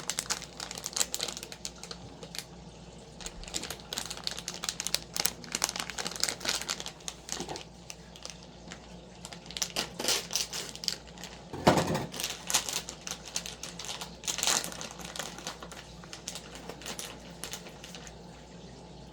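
Crinkling of plastic packaging with irregular clicks and rattles of small parts being handled, and a louder knock about twelve seconds in.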